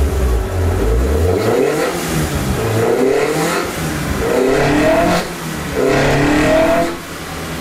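Highly modified Toyota 4A-GE four-cylinder with 52 mm individual throttle bodies and a 3-inch exhaust, revving up on a chassis dyno: it climbs in pitch in several rising sweeps, dropping off sharply about five seconds in and again near the end.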